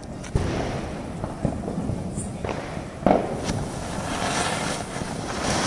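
Chakri (ground spinner firework) lit on the ground, hissing as it sprays sparks, with a sharp crack about a third of a second in and another rise about three seconds in.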